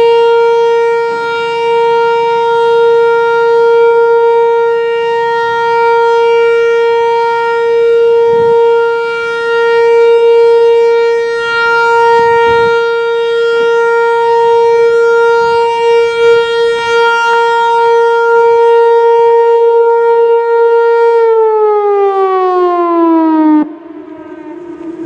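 Whelen Vortex R4 outdoor warning siren sounding a steady alert tone, loud and slowly swelling and fading as its head turns. About 21 seconds in the pitch starts to fall as it winds down. Near the end the sound drops off sharply, leaving a lower, fading tone.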